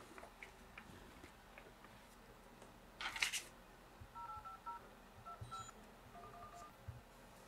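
Smartphone keypad dialing tones as a phone number is keyed in: a quick run of about ten short two-tone beeps, faint, starting about four seconds in. A brief rustle about three seconds in.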